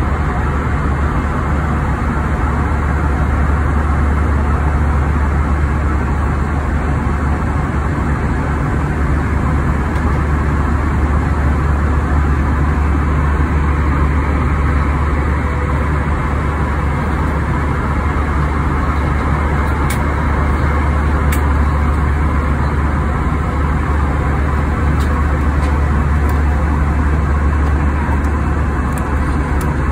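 Steady, loud cabin noise of a jet airliner in flight: the low, even drone of its underwing turbofan engines and rushing airflow, heard from a window seat.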